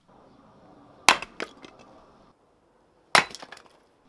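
Axe striking and splitting firewood on a wooden chopping stump, twice, about two seconds apart, each sharp crack followed by a few lighter knocks of the split pieces.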